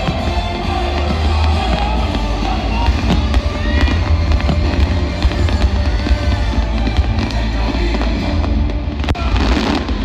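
Fireworks bursting and crackling over loud show music with a heavy bass, with a denser burst of bangs near the end.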